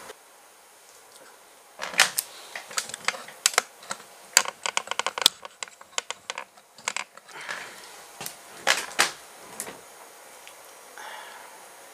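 Handling noise from a roller speargun: quick, irregular clicks and knocks of its parts and shooting line as it is turned over and worked in the hands. It starts about two seconds in and stops a couple of seconds before the end.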